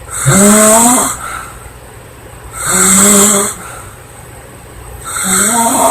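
A woman snoring loudly: three pitched, buzzing snores about two and a half seconds apart, each lasting under a second.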